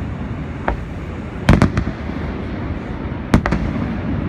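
Fireworks bursting: a single bang under a second in, then a quick cluster of sharp bangs about a second and a half in and another just past three seconds.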